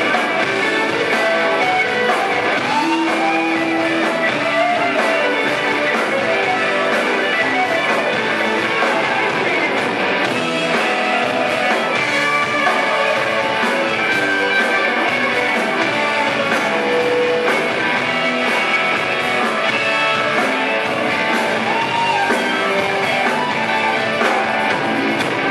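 Live rock band playing loud and steady: electric guitars over a regular beat.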